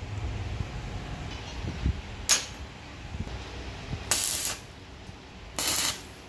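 Steel motorcycle sprockets clinking as they are handled into place, with one sharp metal clink about two seconds in. Then two short bursts of stick-welding arc crackle, about four and five and a half seconds in, as the sprockets are tack-welded together.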